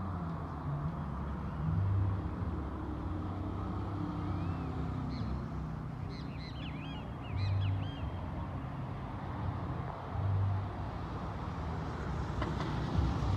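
A low, steady engine rumble that swells briefly a few times, with a burst of high chirping bird calls near the middle.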